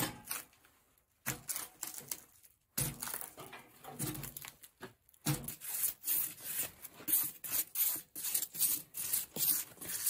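Stiff-bristled hand brush scrubbing dirt and loose rotten bark off a poplar log in quick repeated strokes, about three a second, coming faster and steadier from about halfway through.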